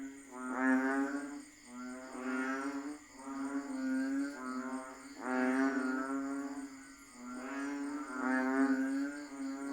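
A chorus of banded bullfrogs (Asian painted frogs): many low calls overlapping, each about a second long, swelling and fading in waves.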